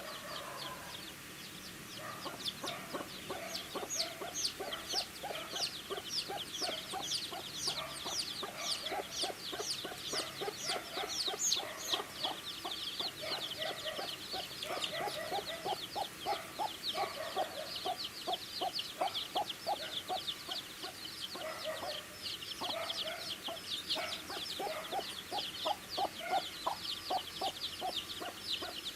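A group of baby chicks cheeping constantly, many short high-pitched peeps overlapping several times a second, with lower soft clucking calls mixed in.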